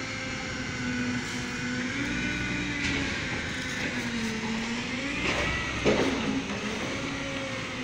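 An engine humming steadily, its pitch wavering slightly up and down, with a single short knock about six seconds in.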